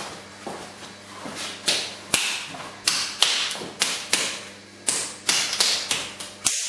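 A lump of wet clay being slapped and patted between two hands into a ball: a run of sharp, fleshy slaps that come about two a second after the first second or so.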